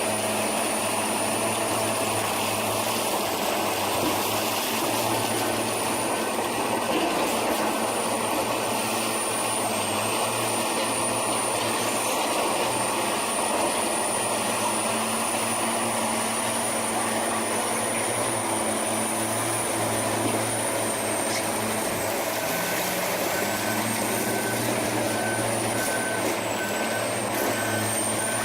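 Heavy diesel machine engine running steadily under a high whine, its pitch stepping up a little about three quarters of the way through. Near the end a reversing alarm starts beeping, about one and a half beeps a second.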